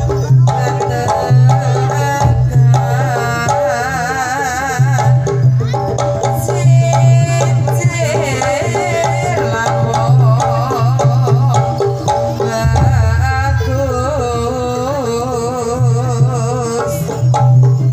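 Live Javanese jaranan ensemble music for a barongan dance: hand-played kendang drums keeping a busy rhythm under a wavering melody line, with a low sustained tone that drops out now and then.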